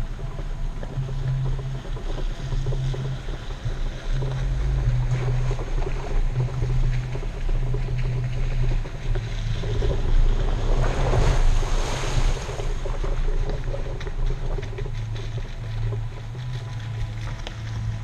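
Jeep Wrangler's engine running at low revs as it crawls along a dirt trail, with low wind rumble on an exterior microphone. A louder rushing swell about ten seconds in fades again about three seconds later.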